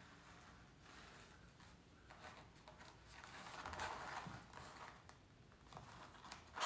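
Faint scratching of a pencil drawing lines on a painted canvas, loudest about four seconds in, with a small click near the end.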